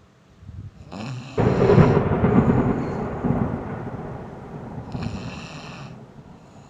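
A sleeping driver snoring heavily. A loud, rattling snore starts suddenly about a second and a half in and slowly fades over several seconds, with a thin high whistle just as it starts and again near the end.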